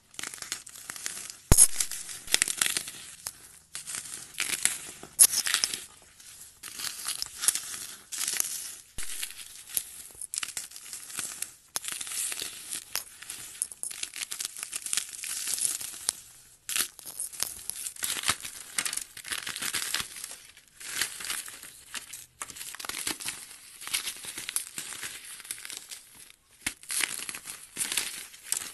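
Paste-coated floral foam being crushed and squeezed in bare hands: a continuous run of crisp, crumbly crunches, with one sharp crack about a second and a half in.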